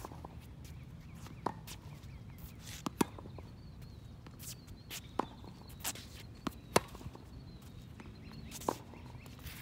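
Tennis balls being struck by racquets and bouncing on a wet hard court: sharp single pops a second or two apart, the loudest about three and about seven seconds in, with footsteps on the court.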